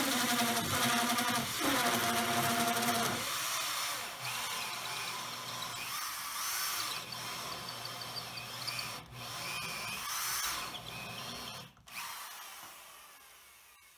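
Corded electric drill driving a bi-metal hole saw into MDF: the motor whines steadily for the first three seconds or so, then the teeth bite and a rough grinding of the cut takes over, fading away near the end. The saw's teeth are clogging with MDF dust.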